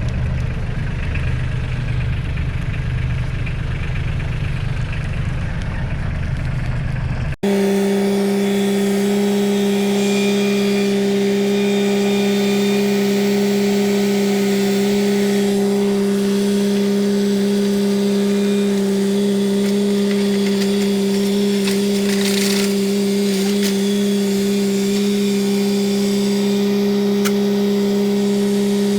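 Engine running: a low rumbling idle that cuts off abruptly about seven seconds in, replaced by a steady, unchanging engine drone.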